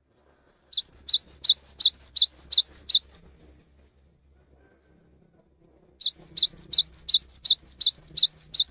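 Cinereous tit (gelatik batu) singing two bouts of a fast, loud, repeated note, about four notes a second, each note a quick rising whistle. The first bout starts about a second in and the second about six seconds in.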